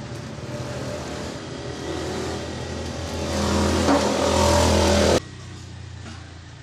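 A motor vehicle's engine running nearby, growing steadily louder and then cut off abruptly a little over five seconds in.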